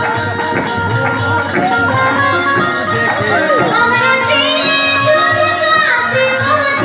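Amplified live Bhojpuri folk band music: a steady drum beat with a fast, even high percussion pattern of about four strokes a second, under a held, gliding melody line.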